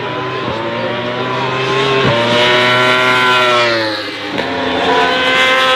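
Supersport racing motorcycle engines running at high revs on the track. The engine note slides in pitch and breaks sharply, as at gear changes, about half a second, two seconds and four and a half seconds in.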